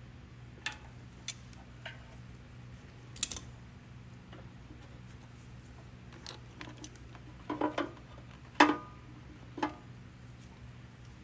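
Scattered clicks and light knocks of small engine parts and tools being handled during reassembly, with a quick cluster of louder knocks about eight seconds in. A steady low hum runs underneath.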